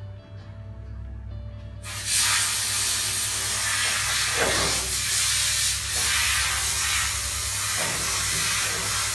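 A loud, steady hiss, like rushing air or spray, starting abruptly about two seconds in.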